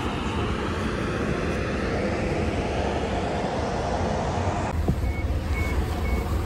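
Steady outdoor traffic noise around a gas station forecourt. After a sudden change, a run of short, even electronic beeps sounds about twice a second inside the vehicle.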